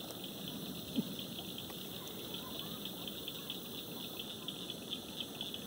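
Shallow river rippling over a stony riffle, a steady rush of water, with one short thump about a second in.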